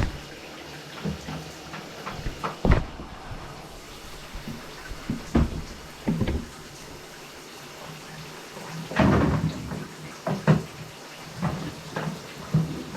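Scattered knocks and clunks of objects being handled, with a longer burst of clatter about nine seconds in.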